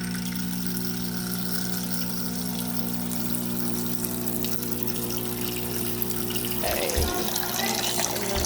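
Saeco HD8775 espresso machine's water pump humming steadily as it pushes rinse water through, with water running out into a bowl. About six and a half seconds in the pump hum drops out while the water keeps running.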